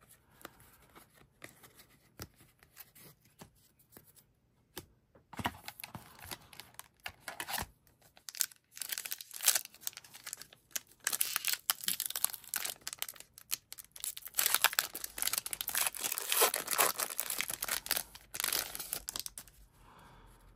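A foil trading-card pack wrapper being torn open and crinkled: a few faint taps at first, then a dense, irregular crackle of tearing and rustling from about five seconds in.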